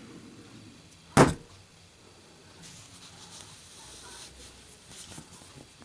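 A Zippo lighter dropped in a drop test, hitting the surface with one sharp impact about a second in, followed by a few faint small knocks.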